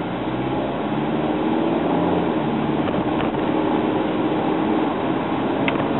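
Heard from inside the cabin, a 2010 Hyundai Accent's 1.6-litre four-cylinder engine pulls the car along, its note rising and growing louder over the first few seconds and then holding steady, over road and tyre noise. A short click comes near the end.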